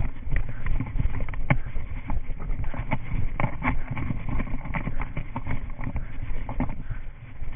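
A runner's footfalls on grass, picked up by a body-worn action camera as a steady run of irregular thuds and knocks, with the camera itself jostling.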